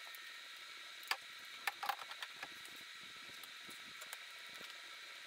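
A few sharp metallic clicks and smaller ticks about a second to two and a half seconds in, from a hand lever grease gun being worked onto the grease fittings of the front steering, over a steady faint hiss.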